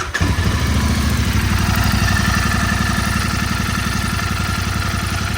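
Royal Enfield Continental GT 650's 648 cc parallel-twin engine idling steadily with a 'tak tak tak' ticking, which the owner puts down to tappets (valve clearances) needing to be set and fears could damage the engine.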